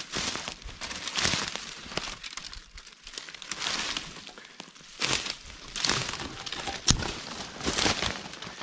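Footsteps crunching through dry fallen leaves and twigs on the forest floor, roughly one step a second, with one sharp crack about seven seconds in.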